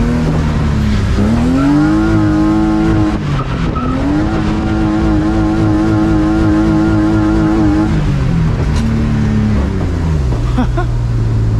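BMW E36 drift car's engine revving up hard and held at high, steady revs for several seconds, with a brief dip in between, as the car is thrown into a slide. The revs then fall back in steps to a low, steady note near the end.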